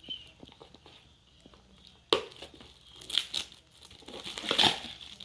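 Crinkling and tearing of the packaging of a Funko vinyl mini figure blind box being opened, with scissors used on it. There is a sharp snap about two seconds in, then louder bouts of crinkling.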